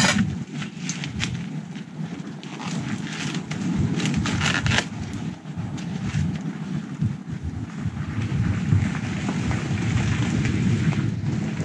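Wind buffeting the microphone in a constant low rumble, with scattered crackles and clicks from a charcoal grill fire, mostly in the first five seconds.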